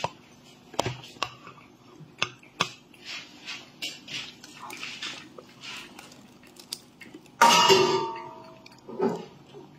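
A cat eating from a small saucer, lapping and chewing with many small wet clicks and smacks. Near the end a single louder burst of noise lasting about a second stands out above the eating.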